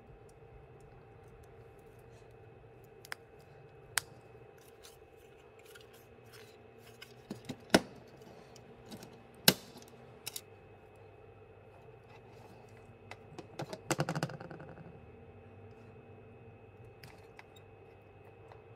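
Scattered clicks and knocks of tools and parts being picked up and set down on a workbench mat, the two loudest about eight and nine and a half seconds in and a quick cluster around fourteen seconds, over a faint steady electrical hum.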